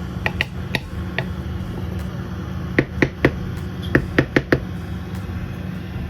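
Utensils knocking against a cooking pot: a few light clicks, then two quick groups of sharp knocks about a second apart, over a steady low hum.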